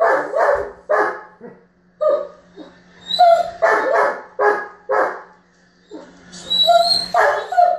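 German Shepherd barking in rapid runs, some barks drawn out into high whiny yips, with a short pause about two-thirds of the way through: the frustrated tantrum barking of a dog whose ball has rolled under the bed.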